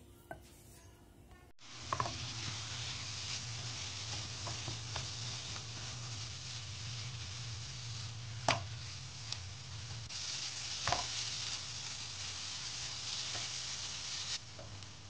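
Ground spice paste frying in a non-stick pan, with a steady sizzle and a low hum under it, and a wooden spatula stirring and now and then knocking or scraping against the pan. The first second or so is nearly quiet before the frying starts.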